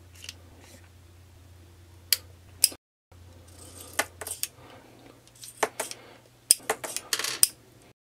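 Heritage Rough Rider .22 single-action revolver being loaded and unloaded: sharp metallic clicks and clinks of the gun's action and cartridges. Two loud clicks come about two seconds in, then a quicker run of clicks and clinks, busiest near the end.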